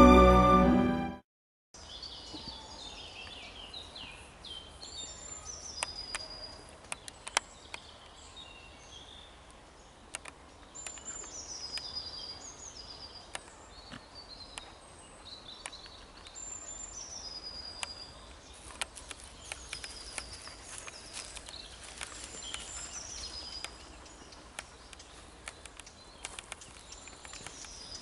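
Background music cuts off about a second in, then woodland birdsong: several birds chirping and whistling, with scattered sharp clicks among them.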